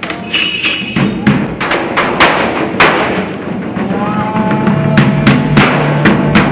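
Live drumming on large bass drums: a run of loud, heavy strikes, joined later by a steady low droning note.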